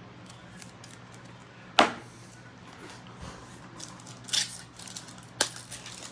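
Trading cards and pack wrappers being handled: a sharp snap a little before 2 seconds in, a short rustle past 4 seconds, and another snap about a second later, with faint handling noise between.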